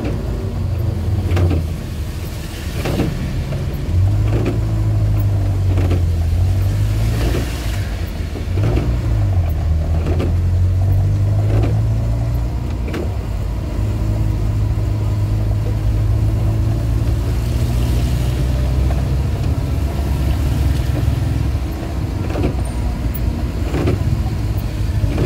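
Suzuki Carry 1.0's engine heard from inside the cab while moving slowly in traffic, its pitch dipping and rising a few times. The windscreen wipers knock about every second and a half, over the hiss of heavy rain.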